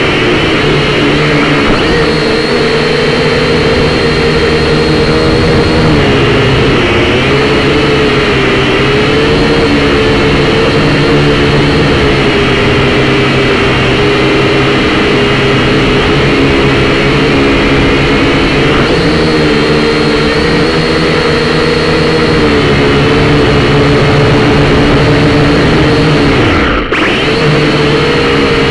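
Syma X5C quadcopter's four brushed motors and propellers buzzing in flight, heard up close through its onboard camera. The pitch wavers up and down as the throttle changes, and the sound dips sharply for a moment near the end.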